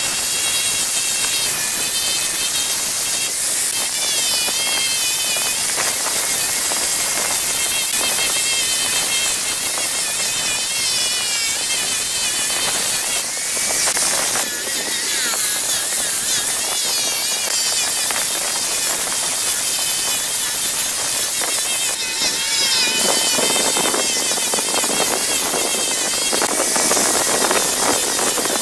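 Angle grinder with a cylindrical sanding drum running at speed and sanding a wooden workpiece spinning on a lathe: a steady high whine that wavers in pitch as the drum is pressed into the wood, over the hiss of sanding.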